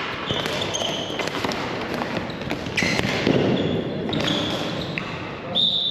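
Ball hockey play: rubber-soled shoes squeaking on the court floor, and sharp clacks of sticks and ball, over a general game hubbub.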